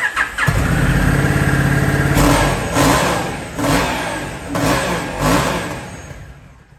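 Honda CRF1100L Africa Twin's parallel-twin engine cranking on the electric starter and catching about half a second in. It then runs with its throttle blipped five times, each rev dropping back toward idle.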